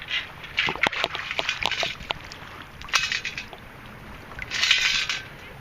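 A metal-detecting sand scoop worked in shallow water: water sloshing and splashing as the load is rinsed and shaken, with a cluster of sharp clicks of sand and gravel in the first two seconds and a longer splash near the end.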